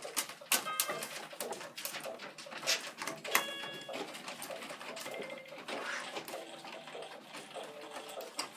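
Raccoon handling a plastic toy keyboard: repeated clicks and knocks of keys and plastic against the wooden floor, with a few short electronic toy notes, one about a second in and another near the middle. Soft low animal calls run underneath.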